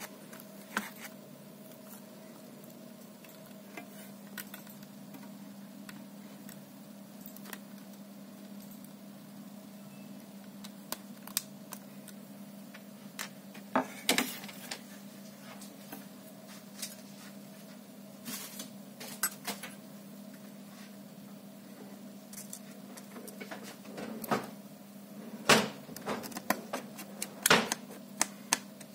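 Light clicks and taps of laptop parts and tools being handled during a repair, scattered throughout, with a few sharper clicks about halfway through and a cluster of louder ones near the end, over a steady low hum.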